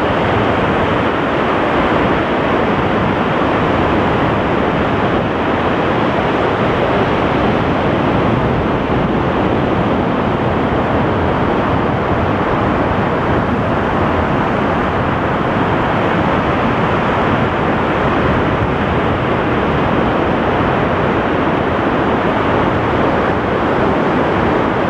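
Steady coastal ambience of surf and wind: an even, unbroken rushing noise that holds the same level throughout.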